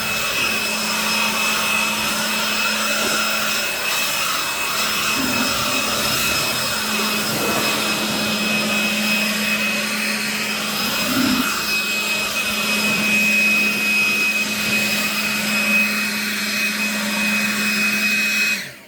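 Ryobi cordless leaf blower running flat out: a loud, steady rush of air with a high electric whine, cutting off suddenly near the end.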